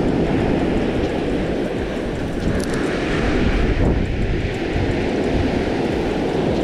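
Wind buffeting the microphone in a steady low rumble, over the wash of breaking surf.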